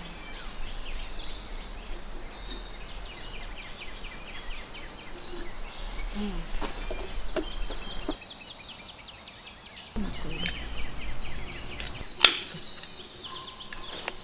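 Woodland ambience with a steady high insect drone and birds chirping; about twelve seconds in, a single sharp pop as an aluminium drink can's pull tab is cracked open.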